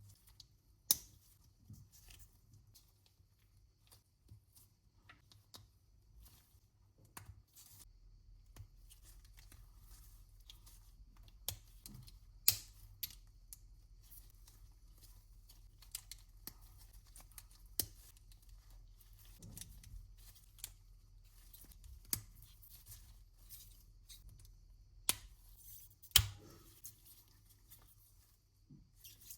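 LEGO pieces being handled and snapped together: sharp plastic clicks every few seconds over faint rustling, with a low steady hum underneath.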